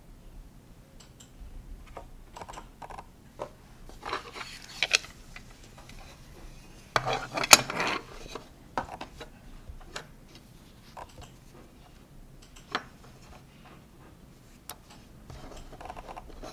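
A plastic clothes hanger and a baby's cotton sweater being handled on a tabletop: scattered clicks, taps and rustles, with a louder cluster of knocks about seven seconds in.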